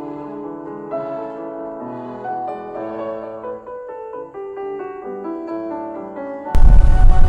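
Piano music, note after note; about six and a half seconds in it cuts off suddenly and a much louder low rumbling noise takes over.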